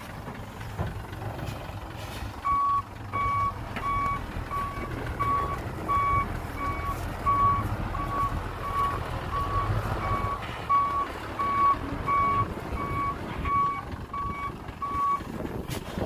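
A heavy construction vehicle's reversing alarm beeping in an even rhythm, about one and a half beeps a second, starting a couple of seconds in and stopping shortly before the end, over the low rumble of its engine.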